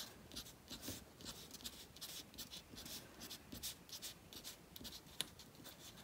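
Felt-tip pen drawing short strokes on folded paper: a faint run of quick scratches, about three a second.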